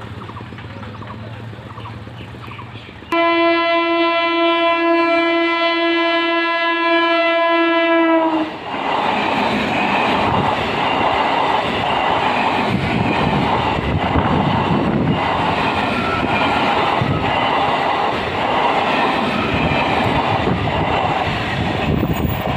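Electric multiple-unit (EMU) local train sounding one long horn blast of about five seconds, starting about three seconds in, then rushing past close by with a loud rhythmic clatter of wheels over the rail joints.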